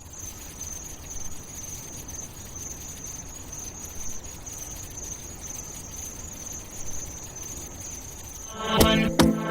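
Steady, high-pitched insect chirring over a low background hiss, ending about 8.7 s in when a pop track's drum beat cuts in loudly.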